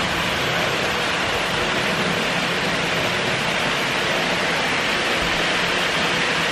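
HO and N gauge model trains running around the layout: a steady rolling whirr of metal wheels on track with a faint motor hum underneath.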